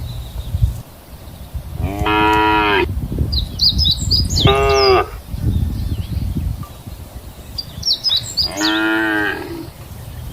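Cows mooing: three short calls, each under a second, about two, four and a half, and eight and a half seconds in. Faint bird chirps come between the calls, over a steady low rumble.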